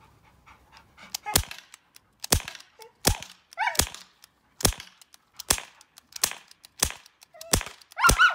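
Daisy Powerline 426 CO2 BB pistol fired in a quick string: about ten sharp pops, roughly one every three quarters of a second, starting about a second and a half in. A dog whines briefly twice between the shots.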